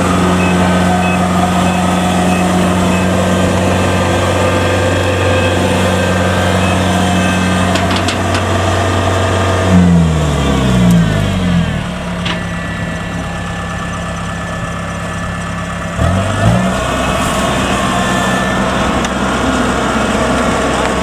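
Kubota DC70 combine harvester's diesel engine running at steady revs, then throttling down about ten seconds in. It runs lower with a brief rev up and down a few seconds later.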